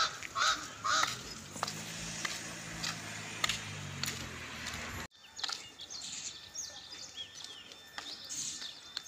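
Street ambience: a bird gives a few short honking calls in the first second, then a low steady hum runs for a few seconds. After an abrupt cut about five seconds in, small birds chirp.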